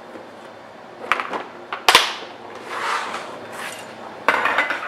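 Hand tools and their packaging being handled: a few sharp knocks, the loudest about two seconds in, a soft rustle, then metal clinking and clattering near the end.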